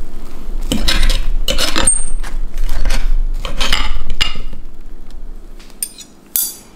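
Dishes and cutlery clinking and scraping: a string of separate knocks and clatters, some ringing briefly.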